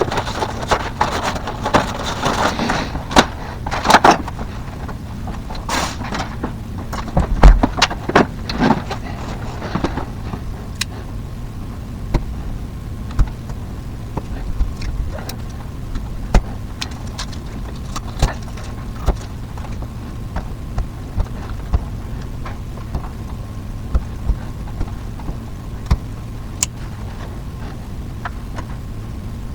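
Work noises: scattered knocks and clicks with rustling, busiest in the first ten seconds and sparser after, over a steady low hum.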